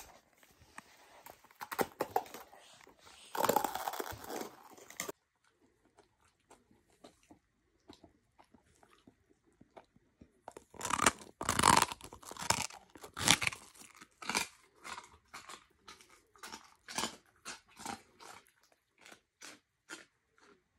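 Dog chewing a Himalayan yak chew, then, from about ten seconds in, biting into the crunchy, microwave-puffed end piece: a run of sharp crunches, loudest at first, settling to about three a second and fading toward the end.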